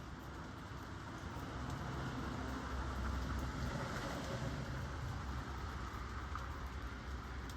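Steady rain falling, with faint scattered drop ticks. A low rumble swells in the middle and then fades.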